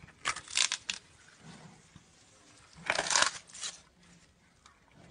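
Giant panda biting and chewing a bamboo shoot: two bouts of crisp crunching, the first just after the start and the second about three seconds in.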